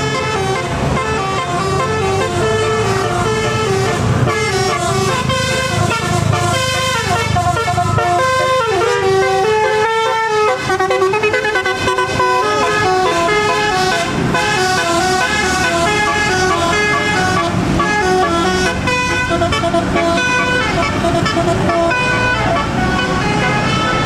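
Tour bus's multi-tone telolet horn playing a fast melody of stepped notes, with the bus's engine running underneath.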